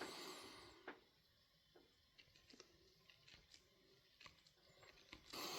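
Faint, scattered snips and clicks of bevel-edge hair shears test-cutting paper towel after sharpening, close to silence.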